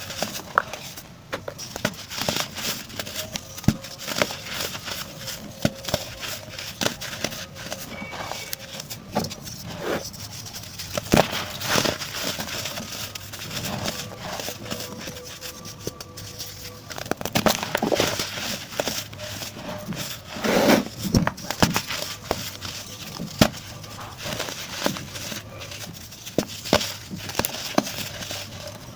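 Pressed baking soda chunks being crushed and crumbled, giving irregular crunchy crackles throughout, with a few louder clusters of crunches about two-thirds of the way in.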